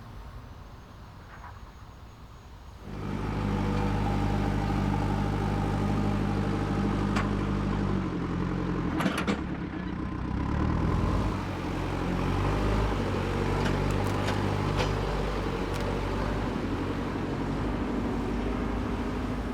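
A large vehicle's engine comes in suddenly about three seconds in and runs steadily, with a few sharp clicks or knocks over it.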